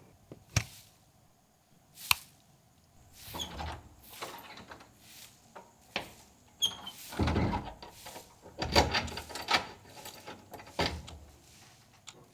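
Door handling: a few sharp clicks and knocks, one with a brief metallic ring, and rustling bursts between them.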